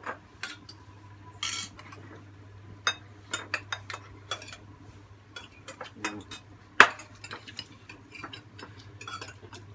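Metal utensils clinking and scraping against bowls and a cooking pot: scattered sharp clicks, with one louder clink about seven seconds in, over a faint steady low hum.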